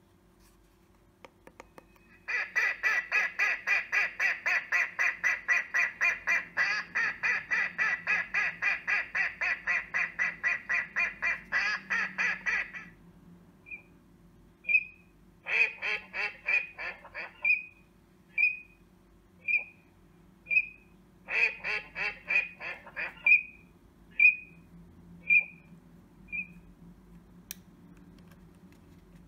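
Electronic game call playing a recording of duck calls through its speaker: a rapid run of quacks about four a second for some ten seconds. Then come short single high notes about once a second, broken twice by shorter runs of quacking.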